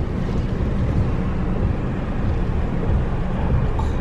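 Strong typhoon wind buffeting the microphone, mixed with heavy surf: a steady low rumble.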